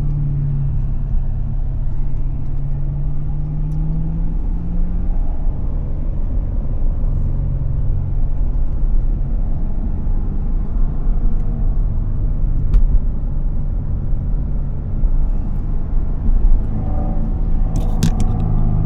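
2018 Corvette C7 Z51's 6.2-litre LT1 V8 running at a steady, moderate engine speed under light load, with a low rumble underneath. Its pitch rises slightly over the first few seconds, drops a little about five seconds in, and then holds steady.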